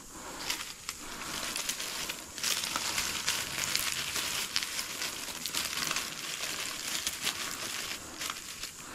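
Dry leaf tinder bundle crinkling and crackling as it is squeezed and folded in the hands, a dense run of small crackles that grows louder about two and a half seconds in.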